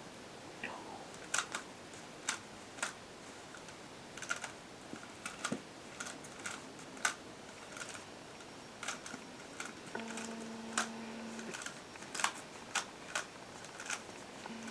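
Plastic Rubik's Cube layers being turned one-handed, giving quick irregular clicks and clacks.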